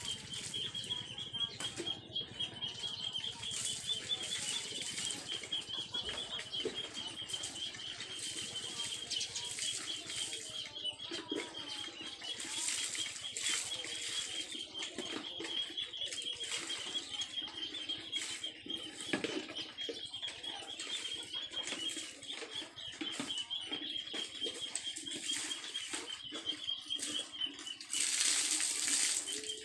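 Water scooped from a bucket with a plastic dipper and splashed over bicycles being washed, in repeated splashes, the longest one near the end. A steady high-pitched trill runs underneath.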